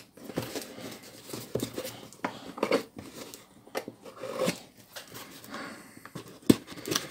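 A cardboard parcel box being handled and its clear packing tape cut and pulled open: irregular scrapes, taps and crackles of tape and cardboard, with one sharp click near the end.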